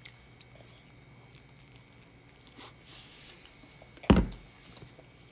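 Quiet kitchen room tone with faint chewing clicks, then a single loud knock about four seconds in as a hand reaches for and bumps the phone that is recording.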